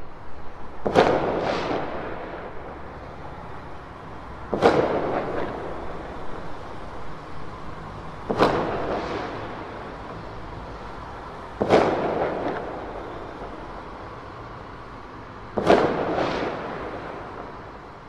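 Distant fireworks bursting: five loud bangs about every four seconds. Each bang is followed about half a second later by a softer second report, then a long fading echo.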